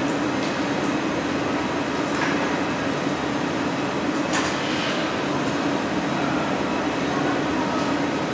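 Steady noise of a glassblowing hot shop: the gas-fired glory holes, furnace burners and fans running together at a constant level. A few faint taps are heard, the clearest about four seconds in.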